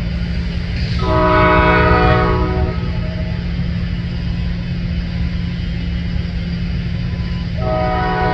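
Diesel locomotive's multi-note air horn from a passing freight train: one long blast about a second in, and a second blast starting near the end, over a steady low rumble.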